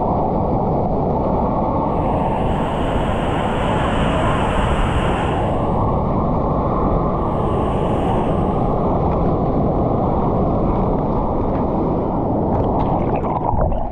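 Fast river current rushing: a loud, steady, dull-toned water noise.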